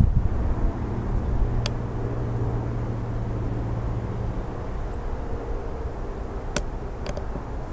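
Steady low hum and rumble like a small motor or wind on the microphone, with three sharp clicks: one about two seconds in and two close together near the end.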